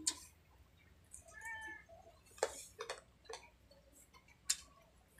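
Faint wet mouth clicks and smacks of someone chewing barbecued pork ribs, a few separate sharp ones, with a short high squeaky cry about a second and a half in.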